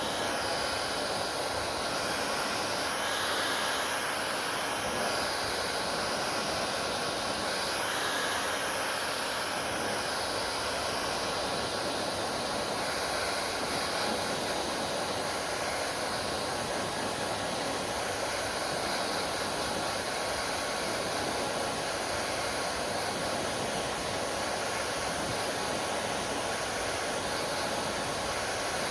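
Hair dryer running steadily: a constant airy rushing hiss from the fan and airflow.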